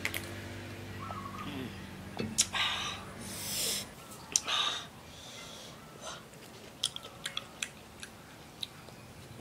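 Close-up eating sounds: a couple of loud breathy sniffs or slurps after drinking from a coconut-shell bowl, then chopsticks clicking on a metal plate and the crunch of fried mole crickets being picked up and chewed. A low hum runs underneath and stops about four seconds in.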